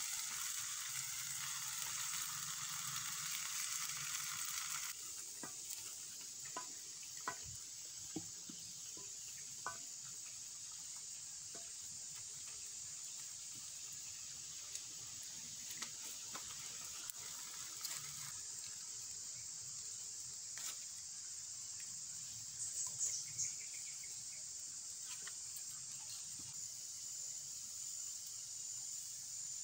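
Sliced rattan shoot sizzling in a small wok over a wood fire while it is stirred with a wooden spatula, with light taps and ticks from the spatula and fire. The sizzle drops to a much quieter hiss about five seconds in.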